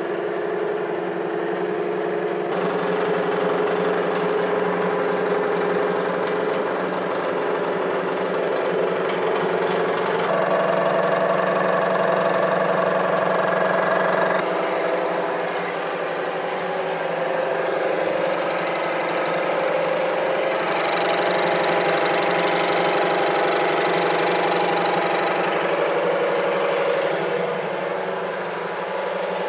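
Bridgeport vertical milling machine running, its end mill cutting brazed buildup out of a worn slot in a cast iron part: a steady machining drone, with a tone that shifts abruptly a few times.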